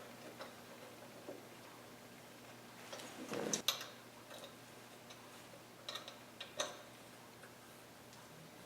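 Faint, scattered clicks and light metallic knocks as a miter fixture is handled and locked down on a disc sander. The loudest cluster comes about three and a half seconds in, with another about six seconds in.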